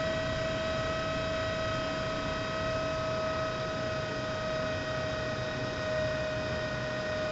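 Sanyo Denki 48-volt high-rev cooling fan running slowly, at about a third of its full speed, giving a steady whine. The temperature controller has throttled it down as the monitored temperature falls.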